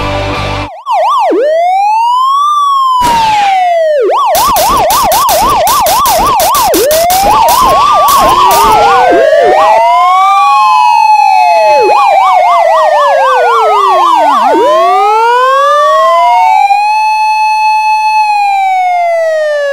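Electronic emergency-vehicle sirens, two overlapping, switching between a slow rising-and-falling wail and a rapid warbling yelp, with the pitch held steady at the top now and then.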